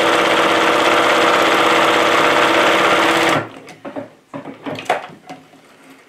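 Bernina domestic sewing machine running steadily at speed, zigzag stitching through gathered cotton fabric, then stopping suddenly about three and a half seconds in. A few faint clicks and rustles follow.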